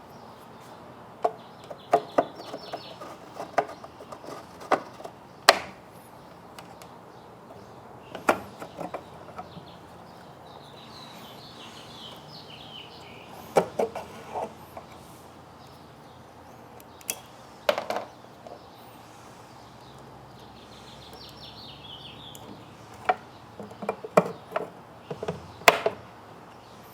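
Scattered sharp plastic clicks and knocks from hands working a pickup's tail light assembly, bulb sockets and housing, coming in clusters with pauses between them. Birds chirp faintly in the background.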